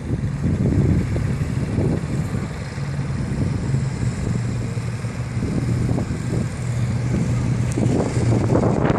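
Several small cruiser motorcycles riding past one after another at low speed, their engines running with a steady low drone.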